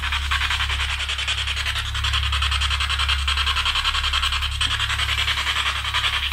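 Steady electronic static hiss from a radio-type gadget, chopped into rapid even pulses several times a second, over a constant low hum.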